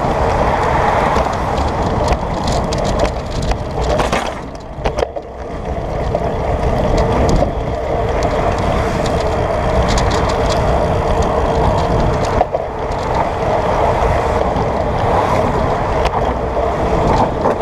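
Riding noise from a bicycle with a handlebar-mounted camera: a steady rushing rumble of wind and rolling tyres mixed with passing car traffic, dipping briefly about five seconds in, with scattered clicks and rattles from the bike.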